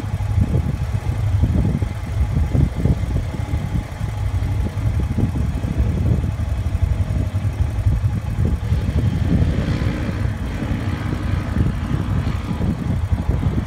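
Side-by-side UTV engine running as the machine drives off across dirt and heads up a steep hill climb, over a constant low rumble. A higher, strained engine note comes in about two-thirds of the way through as it climbs the slope.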